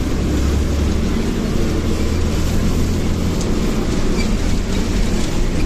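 Bus engine running with road noise, a steady low drone.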